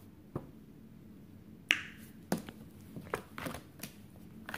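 A deck of cards being shuffled by hand, giving a string of sharp, irregular snaps and taps as the cards slap together. The loudest comes a little under two seconds in.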